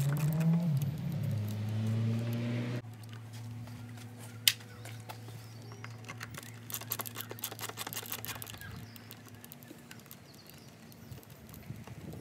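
Screwdriver working the T20 Torx screws on a plastic air filter box lid: a run of small clicks and ticks, with one sharp click about four and a half seconds in. A low steady hum fills the first few seconds and cuts off suddenly.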